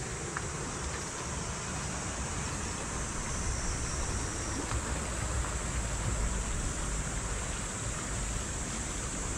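A shallow river running over a stony bed, a steady rushing hiss, with wind buffeting the microphone in low rumbles that grow stronger about halfway through.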